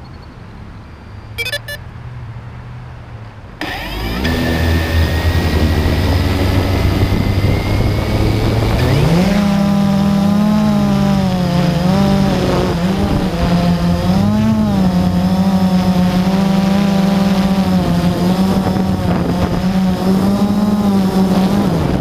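A Blade QX3 quadcopter's electric motors, heard from on board. A few clicks about a second and a half in, then the motors spin up suddenly and idle with a low hum. About nine seconds in the pitch rises as the drone takes off, and it then holds a steady hum with small rises and dips in pitch as it flies.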